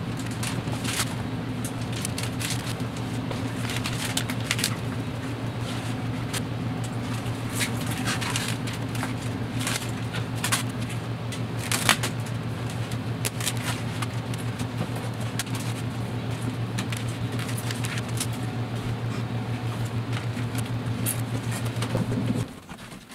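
Crinkling and rustling of breather fabric and plastic vacuum-bag film as they are spread and smoothed by hand over a carbon fiber layup, over a steady low electrical hum from a running motor. The hum cuts off suddenly near the end.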